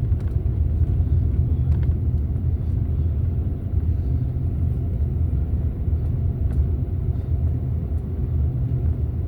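Steady low rumble of a car driving, heard from inside the cabin: engine and road noise with no change in pace.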